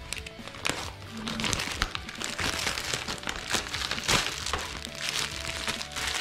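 Thin clear plastic packaging crinkling and rustling as it is handled and pulled out of a cardboard mailer, a dense crackle that grows loudest in the middle, over background music.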